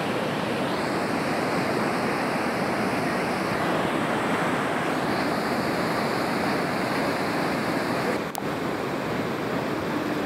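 Muddy floodwater rushing in a swollen river, a steady, even roar of turbulent water. A single sharp click about eight seconds in.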